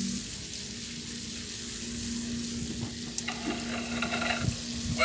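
Battery-powered Robby the Robot walking toy running, with a steady hiss and a low hum. About three seconds in, pitched electronic sound from its small speaker joins in.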